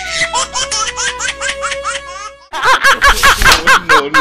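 Laughter in quick, rhythmic ha-ha pulses over a held musical note. About two and a half seconds in it switches suddenly to louder, evenly repeated laughter.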